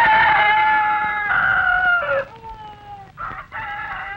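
Rooster crowing: one long, loud crow that falls in pitch at its end, then a second, quieter crow starting about three seconds in.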